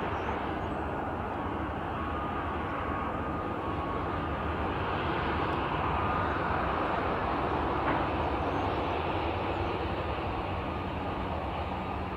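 Twin-engine jet airliner on final approach to land: a steady jet-engine rush with a faint whine, swelling slightly around the middle as it comes closer.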